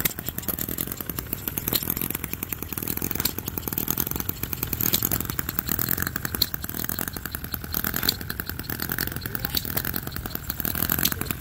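Small scale-model gas engine running with a rapid, even firing beat.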